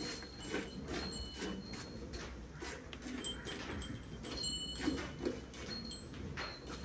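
Hand-milking a Holstein Friesian cow: jets of milk squirting from the teats into a steel pail, in an even rhythm of about two squirts a second.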